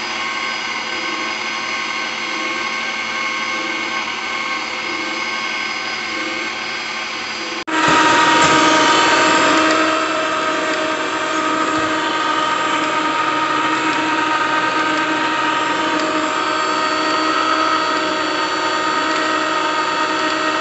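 Ron Popeil electric pasta maker's motor running steadily as it mixes and extrudes dough into pasta tubes, a continuous whine with several steady tones. About eight seconds in, the sound breaks off and comes straight back louder.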